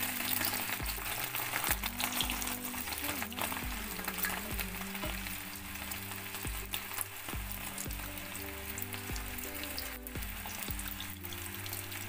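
Sel roti batter deep-frying in hot oil in a cast-iron pan, a steady crackling sizzle, with a metal skewer now and then prodding and turning the ring in the oil. Background music with a steady beat plays underneath.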